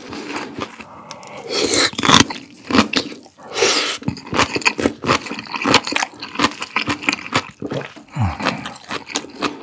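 Close-miked chewing of crisp pickled radish (ssam-mu): irregular wet crunches and mouth sounds. A short falling hum from the eater comes near the end.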